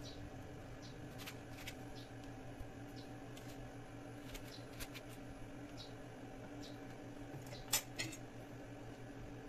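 Faint small clicks and scrapes of seeds being scraped out of halved bitter melon on a wooden chopping block, over a steady low hum. Two sharper clicks come a little before the end.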